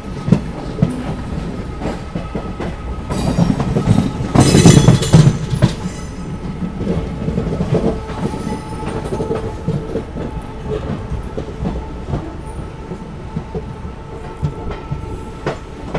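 Passenger train coaches rolling along, heard from the open coach door, with wheels clattering irregularly over rail joints and points and a louder rushing rumble about three to five seconds in. As the train draws into a station, a faint steady whine runs underneath.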